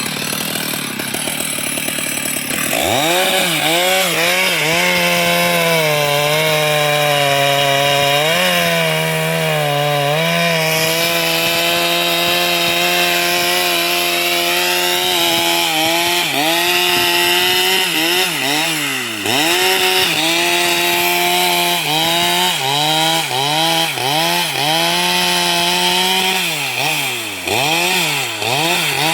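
Two-stroke chainsaw revving up about three seconds in and running at high speed, its pitch sagging briefly now and then. From about eighteen seconds in the throttle is let off and opened again many times in quick succession.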